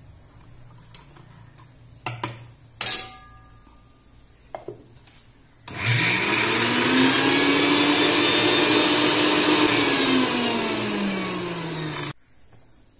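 Electric mixer grinder running its small steel chutney jar for about six seconds, grinding roasted pigeon peas, coconut and dried chillies almost dry, without water. The motor winds up quickly at the start, its pitch sags toward the end, and it cuts off suddenly. Before it starts there are a couple of sharp knocks.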